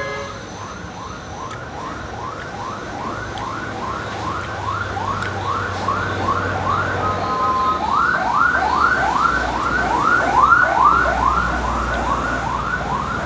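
Emergency-vehicle siren in a fast repeating yelp, about two to three rising sweeps a second, growing louder to a peak about ten seconds in, with a low vehicle rumble beneath it in the second half.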